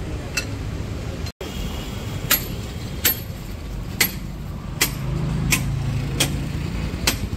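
Steady street-traffic rumble, with a motor vehicle's engine hum passing about five seconds in. From about two seconds in there are sharp taps, roughly one every three-quarters of a second, and a split-second gap in the sound a little over a second in.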